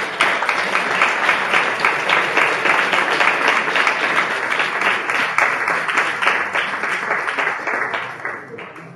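Audience applauding: dense, steady clapping from a crowd that thins out and dies away near the end.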